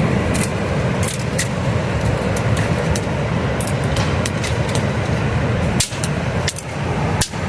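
Steady rushing of river rapids, with scattered sharp crackles and snaps from a campfire being lit.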